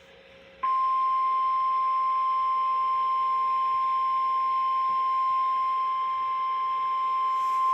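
NOAA Weather Radio 1050 Hz warning alarm tone: a single steady tone that starts about half a second in and holds unbroken. It signals that a warning message follows.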